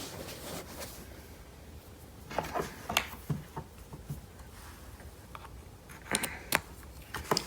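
Handling noise: a few light clicks and knocks in two brief clusters, as cables and a plug are handled, over a low room hum.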